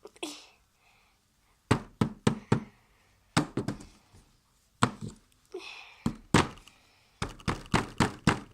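Dull knocks and thunks in quick clusters, ending in a fast run of about six: a hardened, dried-out slime being tapped and banged in its container.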